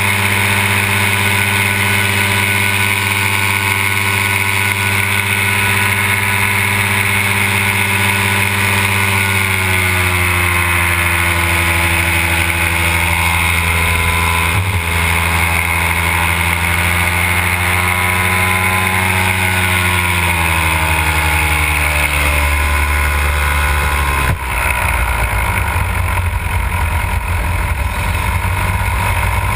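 Simonini two-stroke paramotor engine running steadily behind the pilot, its pitch dropping a third of the way in and again about two-thirds in as the throttle comes back. Near the end the engine tone gives way to rough wind buffeting on the microphone.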